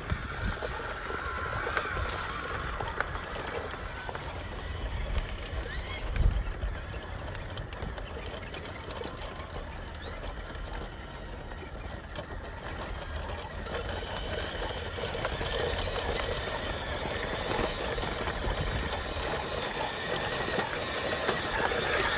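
Small electric RC truck motor and gearbox whirring steadily as a 1:16-scale 6x6 truck crawls over dirt and rock. One knock about six seconds in.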